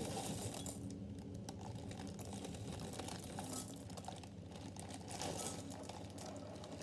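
Crunchy Nut cornflakes pouring from the packet into a bowl: a faint, continuous patter of many small clicks.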